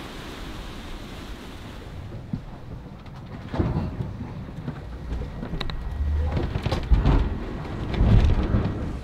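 Wind and rushing sea water on the deck of a sailing catamaran for about two seconds. Then, from inside the cabin, irregular low thuds and rumbles of the hull working through rough seas, loudest in the second half.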